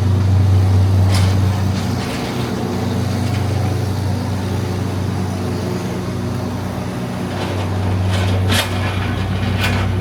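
Steady low hum of a running vehicle, with a few brief high clicks or squeaks near the start and toward the end.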